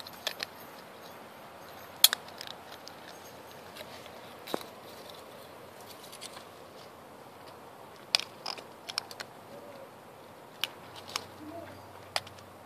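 English cream golden retriever puppy chewing on a pine cone: scattered sharp cracks and crunches as the cone's woody scales break under its teeth, the loudest about two seconds in and a cluster around eight seconds.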